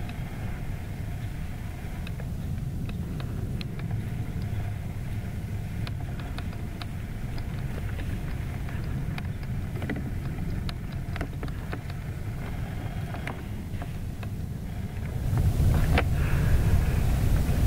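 Outdoor ambience: a steady low rumble with scattered faint crackles. It grows louder and fuller about fifteen seconds in.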